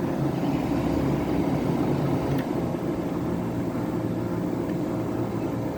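Vintage Crossley 5000 BTU window air conditioner (an Emerson-built unit) running: a steady rush of air from its fan over the low, even hum of its reciprocating compressor.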